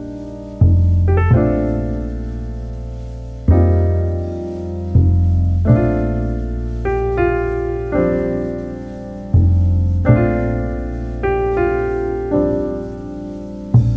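Background music: slow solo piano, a soft chord struck every second or so over a low bass note, each left to ring and fade before the next.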